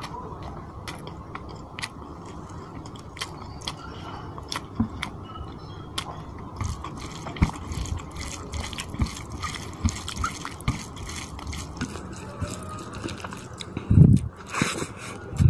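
Close-miked eating: wet, sticky smacking and chewing with many short mouth clicks, and fingers squishing rice into chicken curry gravy. A louder burst near the end as a handful of rice goes into the mouth.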